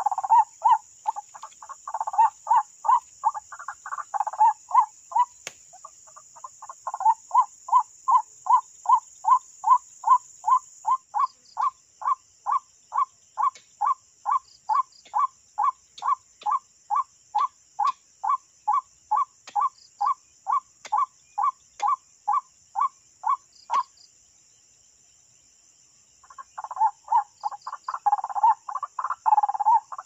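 White-breasted waterhen (ruak-ruak) calling: a long run of evenly repeated notes, about two to three a second, that stops for a couple of seconds near the end and then starts again.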